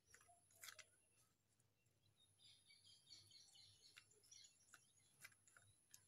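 Near silence: faint bird chirps in the background, mostly around the middle, and a few faint soft taps from hands patting dough flat on a banana leaf.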